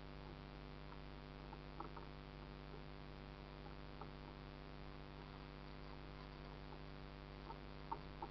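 Faint steady electrical hum from a kayak-mounted camera's own recording. A few soft ticks and plinks of water against the kayak hull sound over it, the sharpest near the end.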